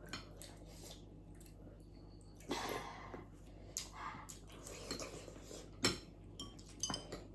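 Eating at a table: utensils clicking and clinking against dishes, with chewing and a few sharper clinks near the end.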